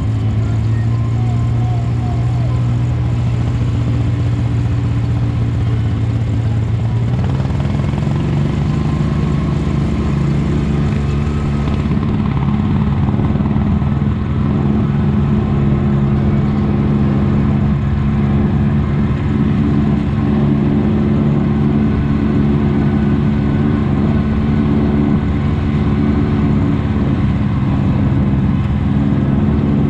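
Side-by-side UTV engine running steadily under way. About seven seconds in, its pitch steps up as the engine speeds up, then holds.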